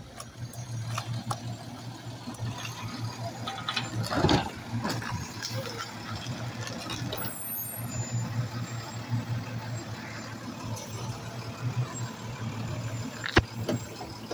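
Automated side-loader garbage truck running steadily while its hydraulic side arm lifts and empties a wheeled trash cart, with a loud clatter about four seconds in and a sharp bang near the end.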